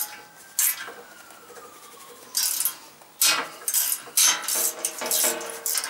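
Ring spanner working the nut on a threaded-rod bearing-race press loose: a series of sharp metallic clicks and clanks of steel on the nut and washer, several close together in the second half.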